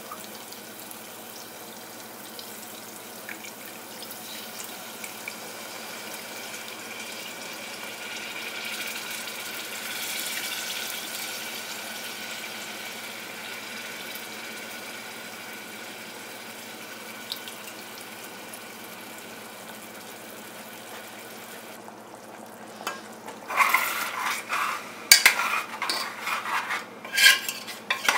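Steady sizzling of the garlic and tamarind gravy cooking in an aluminium pot. From about 23 seconds in, a metal ladle scrapes and knocks irregularly against the pot as the gravy is stirred.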